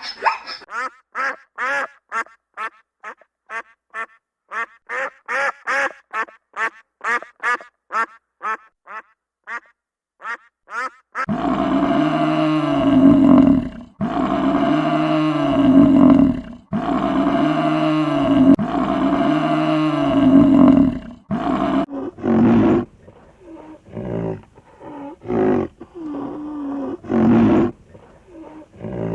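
Animal calls: a rapid run of short high-pitched calls, about three a second, for the first ten seconds. From about eleven seconds in come long, low calls of two to three seconds each, then shorter low calls near the end.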